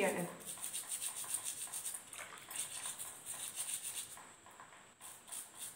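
A brush scrubbing feet and toenails in quick back-and-forth strokes, about five a second, with a short pause about four seconds in.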